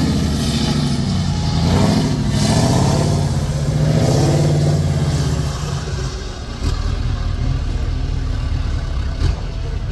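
Diesel engine of an 8x8 Mercedes-Benz trial truck revving hard under load as it climbs a dirt slope, the pitch rising and falling for the first five seconds or so, then easing to a lower, steadier run.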